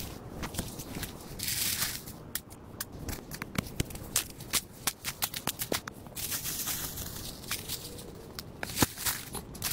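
A small shovel digging and scraping into wet earth, and footsteps through dry leaf litter: crunching and rustling of leaves and soil, with a run of sharp clicks and scrapes through the middle.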